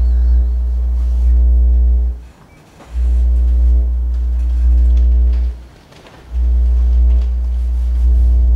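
Sine wave oscillators sounding a loud, deep bass tone with fainter steady higher tones above it. The tone swells in three times, each block held about two and a half seconds and then dropping away for under a second.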